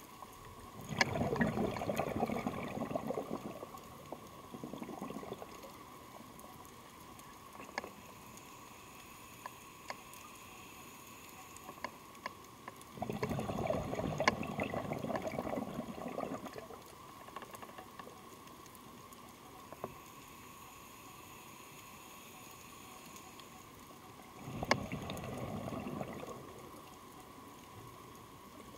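A scuba diver's regulator exhaling, a rush of bubbles lasting two to three seconds, three times about ten to twelve seconds apart, heard underwater with scattered faint sharp clicks between breaths.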